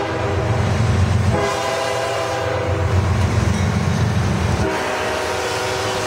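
CSX freight train's diesel locomotives passing close by with engines rumbling, the lead locomotive's air horn sounding in long blasts with a break of about a second near the start.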